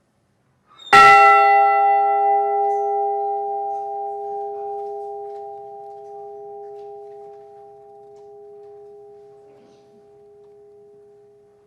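The Edmund Fitzgerald's recovered bronze ship's bell struck once, about a second in, tolled as a memorial for one lost crewman. It gives a clear, many-toned ring that fades slowly, swelling and sinking a little as it dies away.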